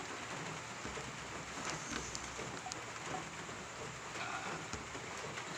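Quiet, steady background hiss with a few faint ticks, and no speech.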